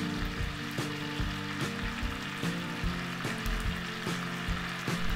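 Clam cooking juices thickened with fish sauce, sugar and starch slurry, sizzling and bubbling in a sauté pan as they come to the boil. Background music with a steady beat plays underneath.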